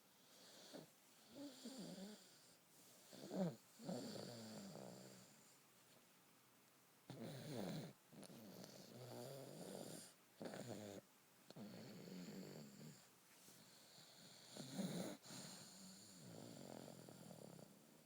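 Baby snoring in sleep: a string of quiet, irregular snoring breaths, about eight of them, some with a rattling, wavering pitch.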